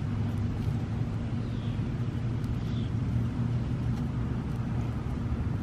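Steady low background hum, with a few faint soft clicks as a Hermann's tortoise bites and chews a hibiscus flower.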